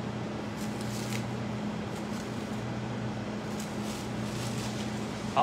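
Plastic cling film crinkling faintly in two short spells as it is peeled off a small glass bowl of egg whites, over a steady low hum.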